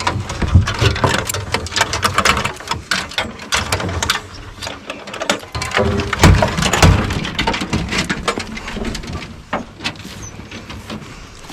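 Close, irregular rustling and crackling with knocks and heavy low bumps, loudest about six seconds in, like brush and leaves being pushed through or gear being handled near the microphone.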